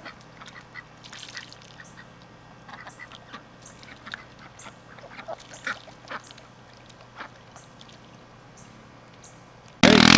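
Ducks quacking in scattered short calls. Near the end a sudden, very loud pitched blast cuts in.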